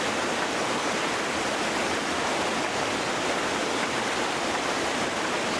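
Floodwater rushing past in a steady, unbroken flow, an even wash of noise with no change in level.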